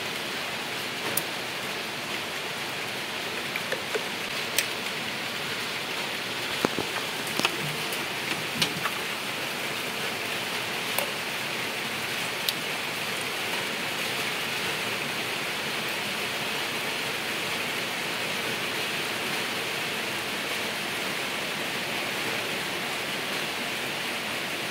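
Spark plug wire boots being handled and pushed onto a distributor cap: scattered sharp clicks and snaps, most of them in the first half, over a steady rushing noise.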